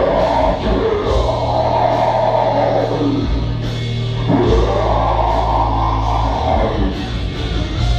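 A heavy metal song with drums and guitar, overlaid with long held growled death vocals: one growl at the start, and a second beginning about four seconds in.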